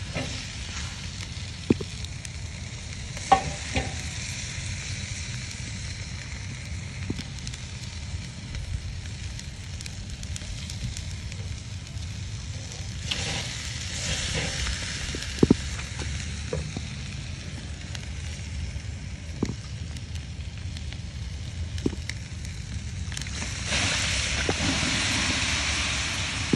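Oxtails sizzling on a charcoal kettle grill, a steady hiss over a low rumble, with scattered short clicks and knocks as the meat is handled. The sizzling swells a little past the middle and grows louder for the last few seconds as smoke billows up.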